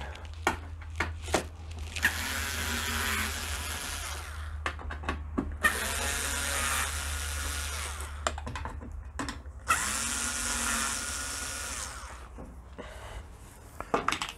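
Small cordless screwdriver with a Torx T15 bit running three times, about two seconds each, as it backs out the screws holding a dishwasher's front panel. The motor's pitch climbs as each run begins, and short clicks come between runs.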